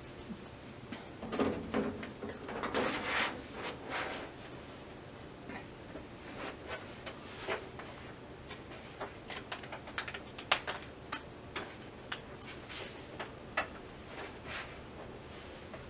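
Thin plastic diffuser sheets of an LCD TV backlight being handled and laid onto the panel frame: rustling in the first few seconds, then scattered light clicks and taps as the sheet edges are pressed down along the frame to line up with its holes.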